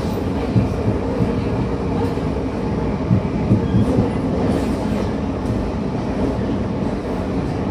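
Running sound of a renewed Tokyo Metro 9000 series train with a full-SiC VVVF inverter: a steady rumble of wheels and traction gear on the track, with a few sharper knocks in the first half.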